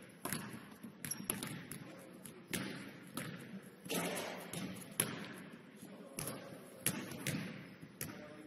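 Basketballs bouncing on a hardwood gym floor, sharp irregular thuds about once a second, each echoing around the large gym.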